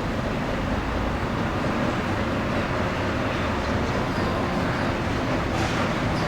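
Large diesel bus engine running close by, a steady low rumble with traffic noise.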